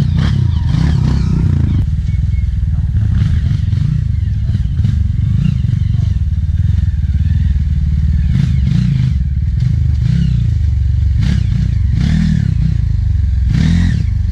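Single-cylinder four-stroke trail motorcycle engine running at low to middling revs, its pitch rising and falling with the throttle, with clattering knocks from the bike over rough ground.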